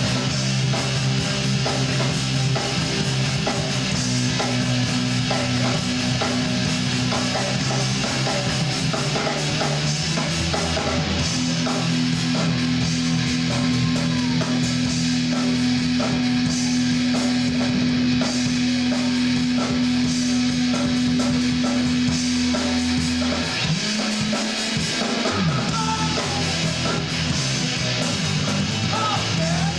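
Live rock band playing an instrumental stretch on electric guitars and a drum kit, with no singing.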